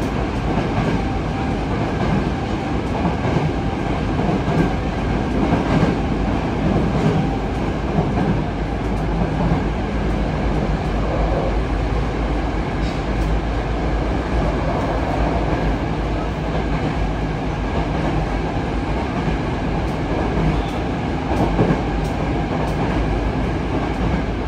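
Steady running noise inside a Yokohama Blue Line 3000S subway car: wheels rumbling on the rails, with a faint steady whine from its Mitsubishi IGBT-VVVF traction drive and a few brief clicks.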